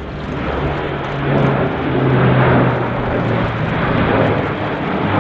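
Airbus A400M Atlas flying overhead, its four Europrop TP400 turboprop engines and propellers giving a steady low hum. The hum grows louder about two seconds in and drops slightly in pitch near the end.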